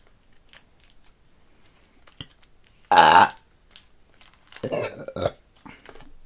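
A woman burps once, loud and short, about three seconds in, after a few seconds of faint clicks. A shorter, softer vocal sound follows about a second and a half later.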